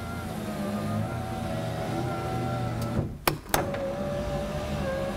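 Power window motor of a 2004 Honda Element, with a newly installed regulator, running the passenger glass down in a test run. About three seconds in it stops with a couple of sharp clicks, then starts again and runs the glass back up with a steady hum.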